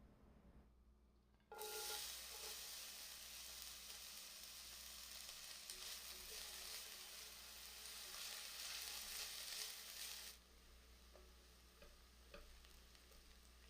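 Food frying in hot oil in a pan: a sizzle that starts suddenly, as if the food has just gone in, and stays steady for about nine seconds. It then drops to a quieter sizzle with a few light clicks of stirring.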